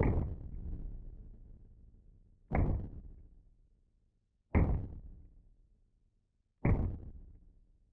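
Taurus RT 85S snub-nosed .38 Special revolver fired four times, about two seconds apart. Each shot is a sharp report with a fading echo.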